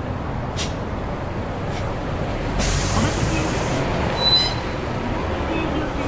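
City bus engine idling at a stop with a steady low rumble; about two and a half seconds in, a loud hiss of compressed air is released (air brakes or door pneumatics) for about a second, followed by a short high beep or chime.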